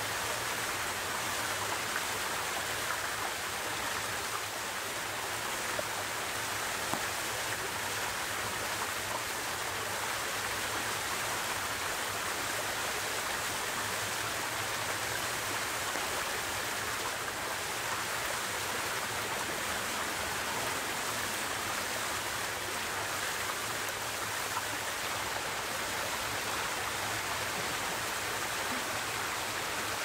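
Steady rushing of a small rocky forest stream flowing over stones.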